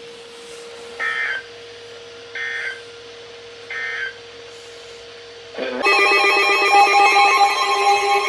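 Emergency Alert System header: three short bursts of screechy digital data about a second and a half apart, then, near the end, a loud harsh attention tone starts and holds, announcing a new warning.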